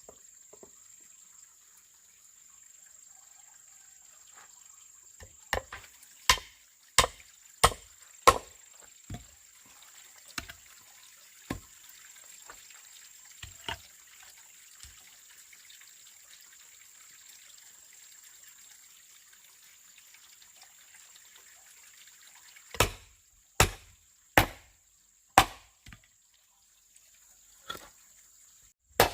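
Chopping with a blade: a run of about five sharp strikes, each roughly two-thirds of a second apart, then scattered single strikes, and a second run of four strikes late on.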